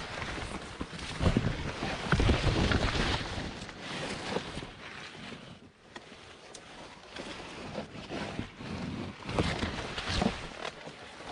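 Wind buffeting the microphone in uneven gusts, with low rumbling swells and a brief lull about halfway through.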